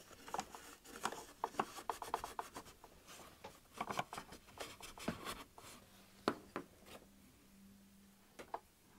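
Oil-soaked cloth rubbing and wiping around the metal hook race of a Bernina 1008 sewing machine, with faint scratchy strokes and scattered light clicks as fingers and cloth catch the hook parts. One sharper click comes a little past the middle.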